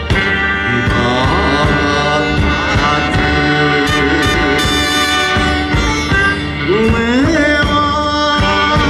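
A live band playing an enka song while a man sings into a microphone. His voice swoops upward in pitch about seven seconds in.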